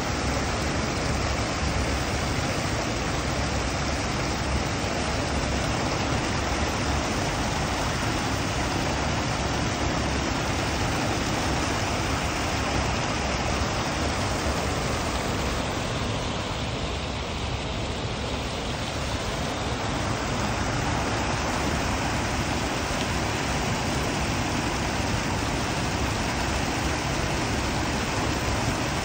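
Water pouring over a concrete weir's stepped spillway: a steady, even rushing of falling water.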